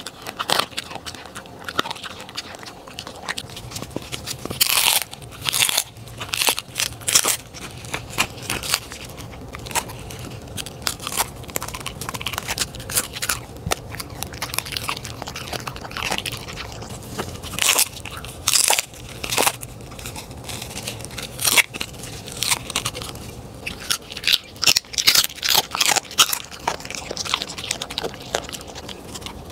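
A corgi crunching and chewing hard, brittle food, in irregular clusters of sharp crunches with short pauses between.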